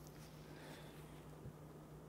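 Near silence: a steady low hum, with a few faint clicks near the start and a soft knock about one and a half seconds in.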